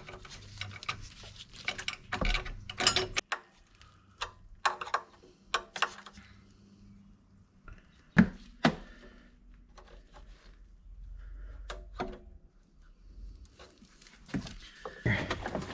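Scattered clinks and knocks of metal parts and tools being handled as a carburetor and its plate are fitted onto a golf cart's engine, with one louder knock about eight seconds in.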